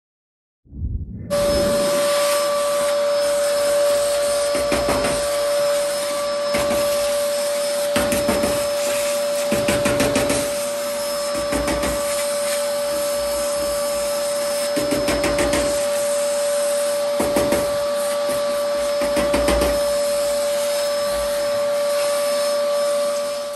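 A small electric motor running steadily with a high whine, cleaning-appliance noise of the vacuum-cleaner kind, with a louder rough surge every second or two as it works. It starts suddenly about a second in.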